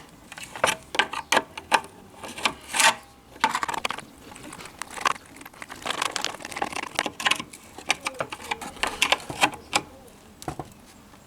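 Irregular small clicks, taps and rattles of metal ring connectors and wires being handled and slid into place on the tail-light wiring.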